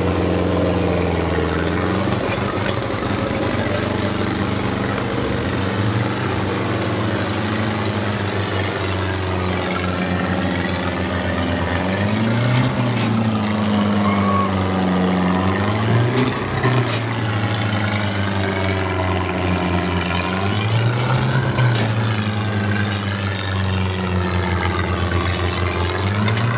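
Diesel tractor engine running at full throttle under heavy load, straining against another tractor chained to it. Its pitch swells up and drops back several times.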